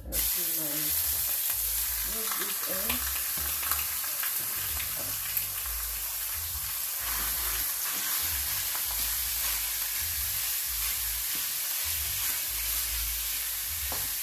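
Minced beef sizzling in hot oil in a frying pan on high heat, starting suddenly as the meat goes in and then holding steady. A wooden spatula stirs it, with an occasional light knock.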